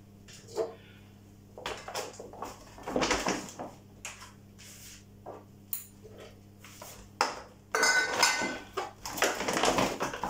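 Glass jars, tins and bottles knocking and clinking as they are picked up and set down while being packed, scattered at first and busiest near the end. A faint low hum runs underneath.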